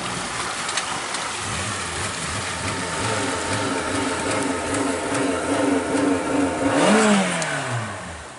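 Boat engine running and growing louder as the boat gets under way, then winding down with a falling pitch about seven seconds in.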